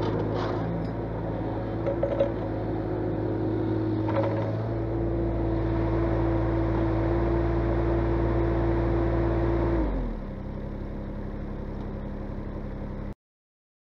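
Sunward SWE18UB mini excavator's diesel engine running steadily under the hydraulics as the boom swings. The engine note rises a little about halfway through, then drops to a lower idle about ten seconds in. The sound cuts off suddenly near the end.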